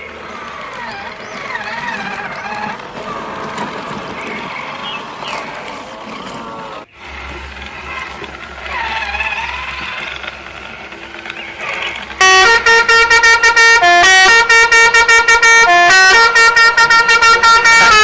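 A loud horn plays a tune in rapid short toots, stepping between pitches, from about twelve seconds in. Before it there are fainter chirping sounds that glide up and down in pitch.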